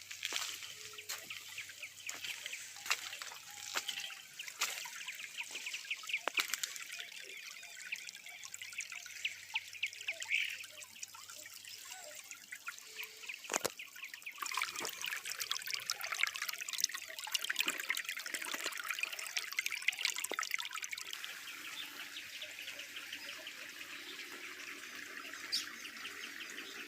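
Water running and trickling steadily over the spillway of an earthen reservoir that is overflowing after heavy rain.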